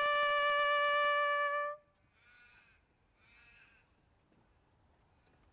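A bugle holds one long, loud note that cuts off about two seconds in. Two faint, harsh bird calls follow, each about half a second long.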